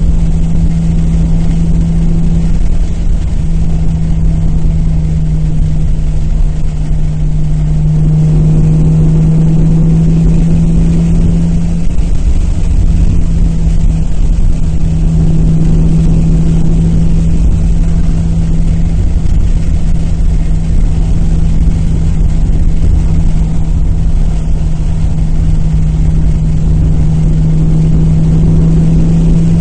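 Nissan Maxima's V6 with aftermarket headers and exhaust idling steadily, a constant low hum with one steady tone over a rumble. This is the slight misfire at idle that the owner is testing for.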